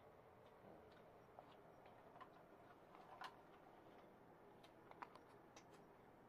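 Near silence: room tone with a few faint, scattered ticks and clicks.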